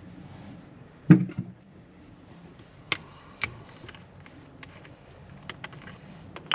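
Plastic motor-oil jugs and the makeshift bottle funnel being handled during an oil refill: one loud knock about a second in, then scattered light clicks and taps.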